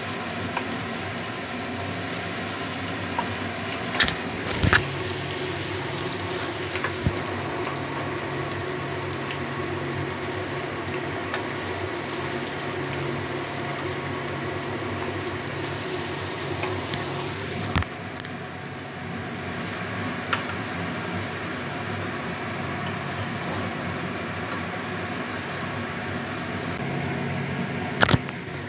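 Sliced onions sizzling in hot oil in a non-stick kadai as they fry toward golden, stirred with a wooden spatula. A few sharp knocks of the spatula against the pan come about four seconds in, at around eighteen seconds, and near the end.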